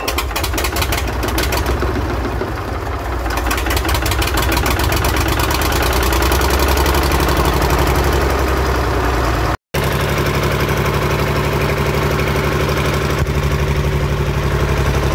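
Gardner 3LW three-cylinder marine diesel engine running steadily just after starting, with a brief break about ten seconds in. The owner notes blow-by from it, most likely stuck rings or worn bores.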